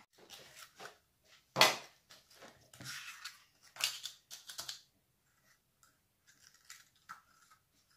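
Paper cupcake liners crinkling and rustling in small hands as they are peeled apart from a stack, in short scattered bursts, with a few light ticks later on.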